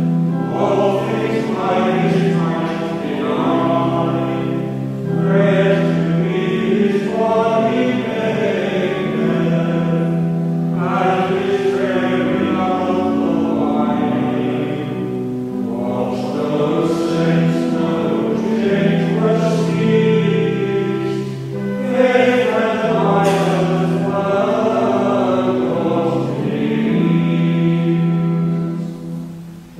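A group of voices singing a Eucharistic plainchant hymn in English in unison over sustained organ chords, line after line, with a brief break near the end.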